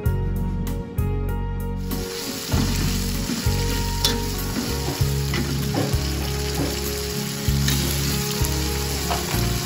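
Chili-tomato sambal sizzling as it fries in a metal wok, with a metal spatula scraping and clicking against the pan as it stirs and turns fried fish into the sauce. Soft background music plays at first, and the sizzling comes in about two seconds in.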